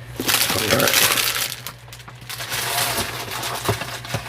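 Plastic trading-card packaging crinkling and rustling as it is handled, in two stretches of about a second each.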